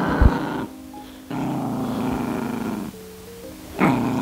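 Maltipoo puppy growling in stretches while it grips a slipper and resists a hand trying to take it, over light background music.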